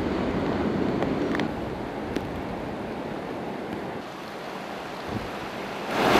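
Steady rushing of storm wind and water over a flooded street during a tropical storm, with a few faint clicks. It eases a little about a second and a half in and grows suddenly much louder near the end.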